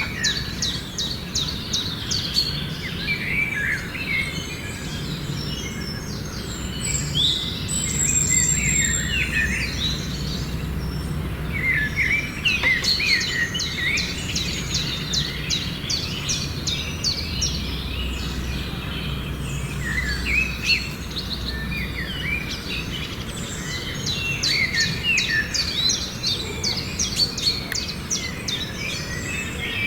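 Several small birds chirping and trilling, in fast runs of high chirps that come and go, over a steady low hum.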